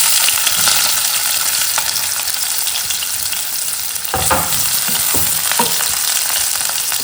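Chopped onions sizzling loudly in hot oil and ghee, starting abruptly as they go into the pan. A few knocks against the pan, about four and five seconds in, come with the stirring.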